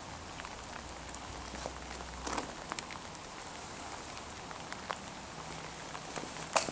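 Faint, irregular footsteps on wet paving over a steady outdoor hiss, with a low hum that stops about two and a half seconds in.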